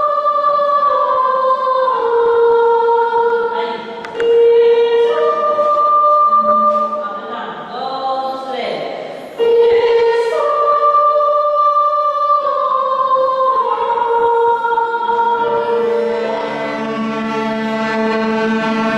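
Mixed choir singing sacred music in long held chords that move step by step. The singing softens and wavers about halfway through, then comes back in loudly at the start of a new phrase.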